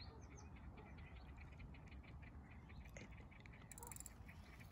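Faint birdsong: many short, high chirps from small birds over a low wind rumble, with a brief high rattle a little before the end.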